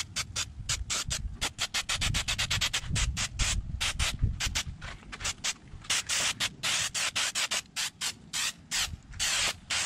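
Aerosol spray adhesive being sprayed onto jet ski seat foam in many short hissing bursts, with a couple of longer sprays about six seconds and nine and a half seconds in.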